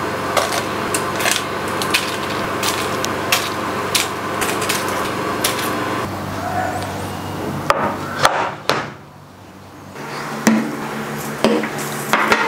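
Light knocks and taps on a wooden cutting board as things are set down on it, over a steady hiss for the first half. Near the end come a few separate knocks as sauce bottles are put down one after another.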